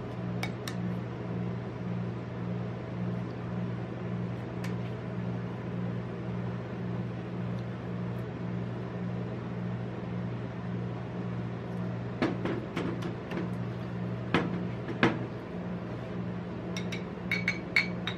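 Steady electric hum of an ice-roll machine's refrigeration unit under its steel cold plate. About two-thirds of the way in, a few sharp knocks as a glass Pepsi bottle is handled and stood on the steel plate; near the end, a quick run of light ringing clinks as a metal bottle opener is picked up.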